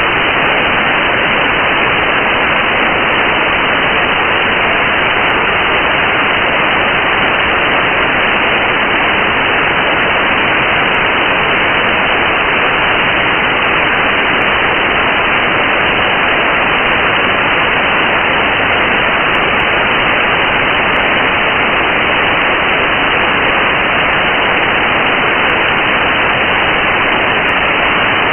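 Steady, loud hiss of static from a NOAA Weather Radio receiver, with no voice or tones in it.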